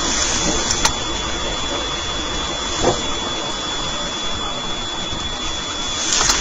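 Steady aircraft engine noise, an even rushing with a constant high whine, broken by a faint click about a second in and a soft knock near the middle.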